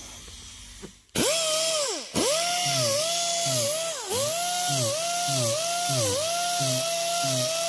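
Small straight die grinder with an abrasive sanding disc grinding paint off a car body panel. It spins up about a second in, stops briefly, then runs on as a steady whine that dips in pitch every half second or so. It is stripping a paint blister down to look for rust under freshly applied paint.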